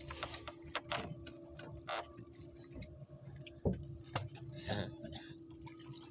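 Boat engine idling faintly as a low steady hum, under scattered light ticks and clicks, with faint voices now and then.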